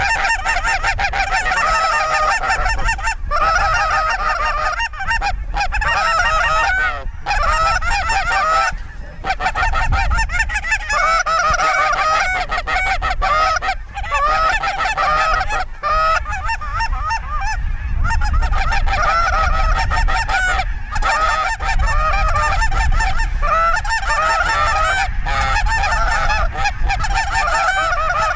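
A dense chorus of geese honking, many overlapping calls at once as a large flock comes in, with a steady low rumble underneath.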